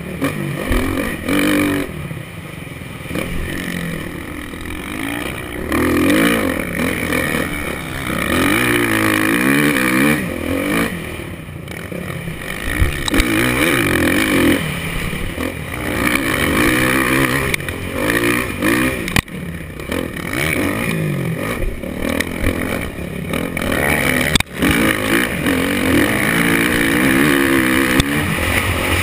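Motocross bike engine heard from the rider's own helmet, revving hard and dropping off again and again as it accelerates out of turns and shifts, with a steady rush of wind and noise over it. Two brief sharp knocks sound partway through.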